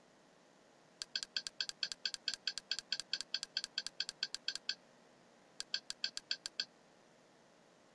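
Kodi user-interface navigation clicks, one short identical click for each step of the highlight down a menu list. A fast even run of about six or seven clicks a second lasts nearly four seconds, then there is a short pause and five more clicks.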